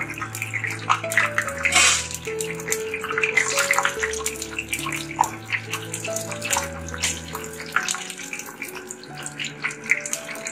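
Burinda (boondi) batter drops sizzling and crackling as they deep-fry in hot oil. Background music with held notes plays under it.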